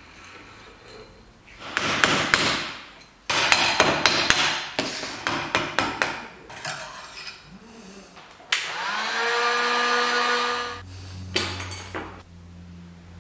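Hand tools knocking and tapping on the metal parts of a vintage Vespa rear shock absorber held in a bench vise: a quick run of sharp metal strikes, then, after a pause, a drawn-out squeal rising in pitch for about two seconds. A low steady hum starts near the end.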